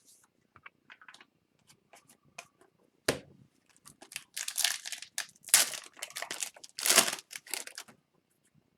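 A trading card pack's wrapper being torn open and crinkled, after a few light clicks and a single thump.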